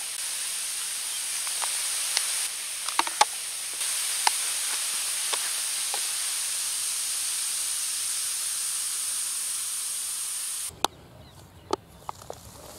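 Baking soda and vinegar foam fizzing: a steady high hiss with scattered sharp pops of bursting bubbles. The fizzing cuts off suddenly near the end, leaving a few light clicks.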